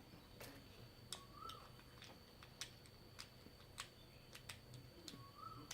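Near silence broken by faint, scattered clicks of plastic Lego pieces being handled and pressed together, about a dozen spread unevenly through the stretch.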